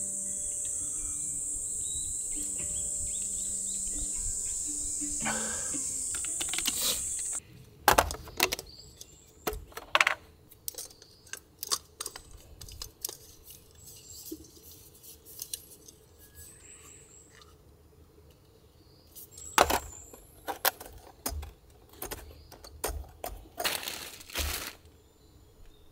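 Crickets chirping in a steady high trill over soft guitar music, cutting off abruptly about seven seconds in. What follows is a series of scattered sharp clicks and light clinks of small objects being handled, with rustling between them.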